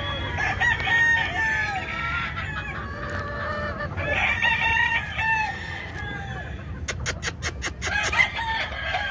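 Gamefowl calling over one another: hen clucks mixed with rooster crowing. About seven seconds in there is a quick run of roughly eight sharp clicks.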